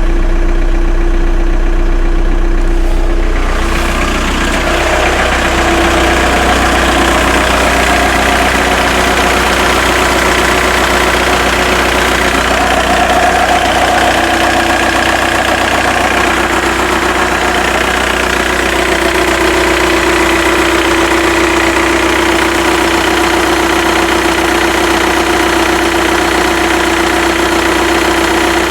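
Skoda Octavia 1.9 TDI (ALH) four-cylinder turbodiesel idling warm at about 50°C, with a strange noise the owner is chasing after already replacing the alternator bearings and belt pulley. A steady hum with a constant tone; about four seconds in a harsher hiss joins and stays.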